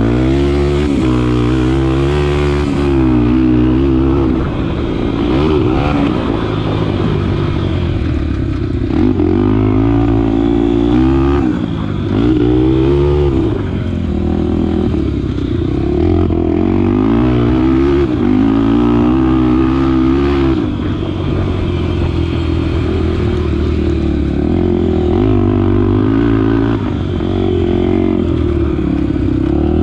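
Honda XR250 Tornado's single-cylinder four-stroke engine revving up and easing off over and over as the bike is ridden, its pitch rising and falling every couple of seconds.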